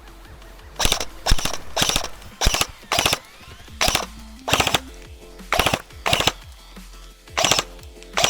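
Airsoft guns firing about ten short full-auto bursts, each a quick rattle of shots, starting about a second in.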